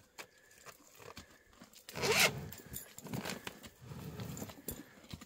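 A downed, roped bull breathing heavily: a few loud breaths about a second apart, the strongest about two seconds in, with small clicks and rubbing from the rope being handled at its horns.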